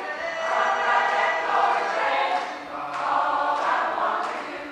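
Large mixed chorus singing a gospel song in held, full chords.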